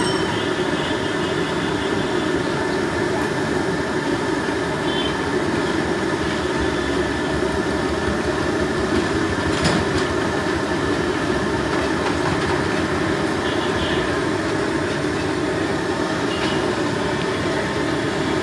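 Jilapi batter deep-frying in a wide karai of hot oil: a steady, dense sizzle and rumble that never breaks.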